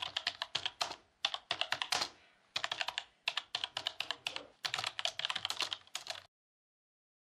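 Typing sound effect: rapid keystroke clicks in short runs with brief pauses, stopping a little after six seconds in.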